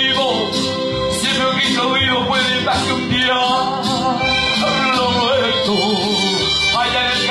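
A man singing into a microphone through a PA over accompanying Latin Christian music with a steady beat, his voice held and bending in long drawn-out notes.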